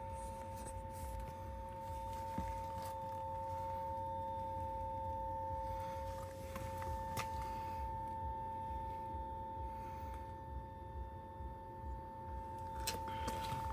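Parked Lotus Eletre R giving off a steady two-tone electrical buzz, a fault with no obvious cause that keeps going while the car sits locked with its pedals partly deployed.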